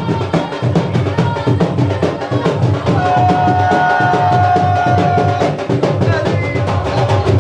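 Fast, dense drumming with strong low beats, in a driving rhythm. About three seconds in, a single high note is held for roughly two and a half seconds over the drums.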